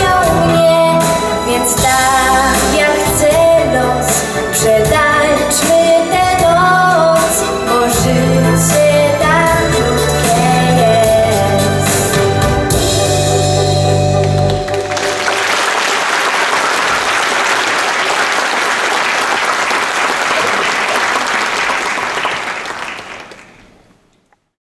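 A young woman singing a ballad into a microphone over instrumental accompaniment; the song ends a little past halfway. Audience applause follows and fades away near the end.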